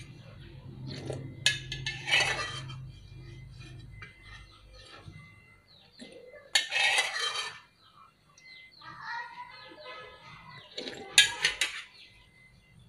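Metal spoon scraping and clinking in a metal bowl in three short bursts, about two, seven and eleven seconds in, as the last of the noodles and broth are spooned up.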